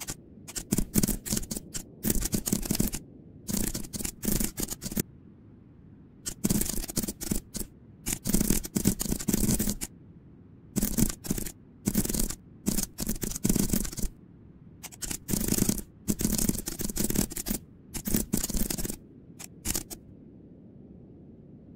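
Computer keyboard typing: rapid runs of key clicks in bursts of a few seconds, broken by short pauses.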